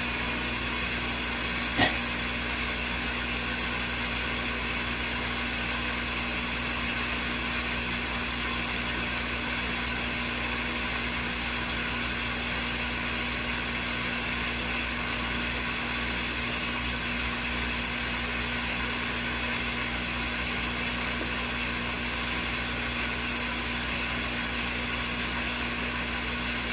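Compact RV washing machine running with a steady motor drone. There is a single click about two seconds in.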